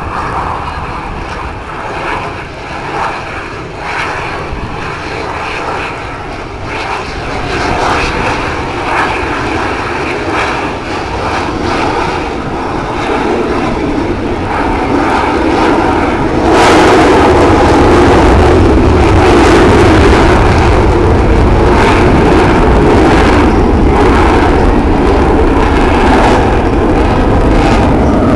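Jet engine noise of Blue Angels F/A-18 Hornets flying past, building gradually and then becoming much louder about halfway through as a jet comes close, staying loud to the end.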